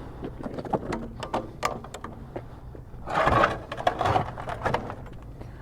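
Handling noise: a string of light knocks and clicks, with a short rustling scrape about three seconds in.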